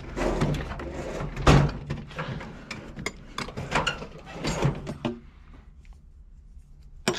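Tools and gear being handled and set down: a run of clatters and knocks, the loudest about a second and a half in, thinning out after about five seconds, with a couple of sharp clicks near the end.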